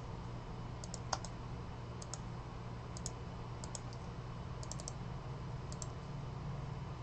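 Scattered clicks of a computer mouse and keyboard, a dozen or so short, sharp clicks with some in quick pairs, over a low steady hum.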